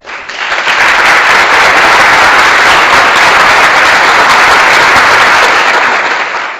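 Sound-effect clip of a crowd applauding: dense, steady clapping that rises in within the first second and fades out at the end.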